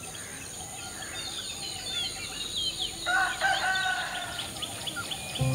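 Small birds chirping and warbling all through, with a rooster crowing about three seconds in.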